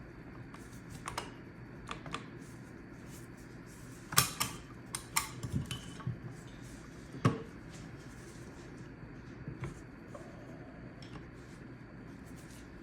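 Metallic clicks and knocks of SKS rifle parts being handled as the trigger group is worked into the stock: a sharp knock about four seconds in, a quick run of clicks over the next two seconds, and another sharp knock a little past seven seconds, over a low steady hum.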